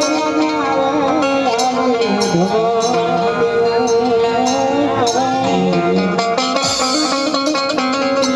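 Instrumental intro of a Gujarati folk devotional song (bhajan): an ornamented plucked-string melody with bending notes over a steady drone, with regular percussion strikes.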